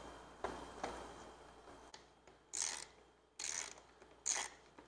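Hand socket ratchet clicking in short bursts, about four strokes in the second half, as a fender bolt on a motorcycle's tail section is loosened.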